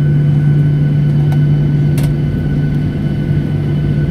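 Cabin noise of a Boeing 737 airliner taxiing: a steady hum of the jet engines and cabin air with a constant low tone, and one light click about two seconds in.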